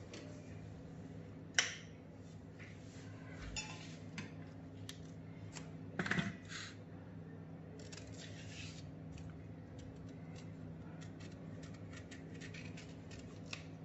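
Knife trimming and peeling raw green bananas over a stainless steel bowl: a few knocks of bananas against the bowl, the loudest about six seconds in, then a run of small scraping clicks from the blade on the peel. A steady low hum runs underneath.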